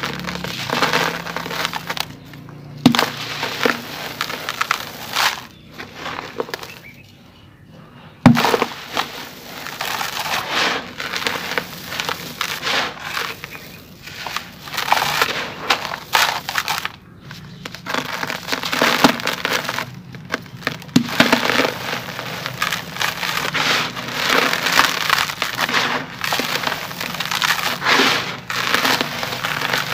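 Dry sand-cement chunks crumbling between bare hands and gritty cement powder pouring and being raked in a tub: a dense, crunchy crackling. After a short lull about seven seconds in comes one sharp crack, the loudest moment.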